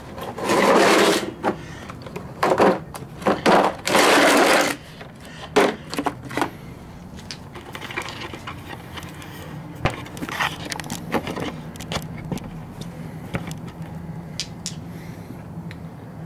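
Handling noise: four loud scraping and rubbing bursts in the first five seconds, then scattered light clicks and taps over a faint steady hum.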